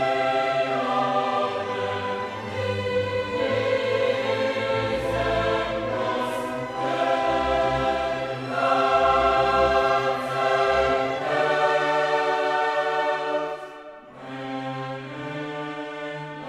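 Background music: a choir singing long held chords over orchestral accompaniment, the chords changing every second or two, with a brief drop in loudness near the end.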